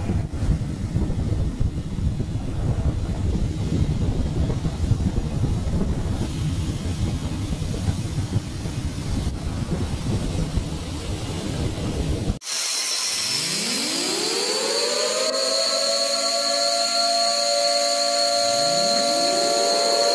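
A low, noisy rumble from a ship-launched missile's rocket motor runs for about the first twelve seconds and cuts off abruptly. Then an F-16's jet engine spools up: its turbine whine rises steadily in pitch and levels off, with a high steady whistle above it. A second rising whine begins near the end.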